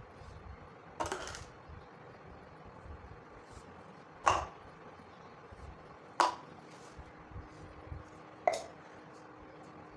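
Kinetic sand being cut with a blade: four sharp cuts about two seconds apart, the first a longer scraping slice, with faint ticks in between.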